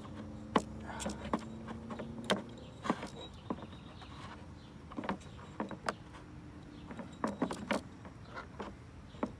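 Scattered light clicks and taps of hands working at the oil filter housing, picking off an old O-ring stuck on it. A low steady hum stops about two seconds in.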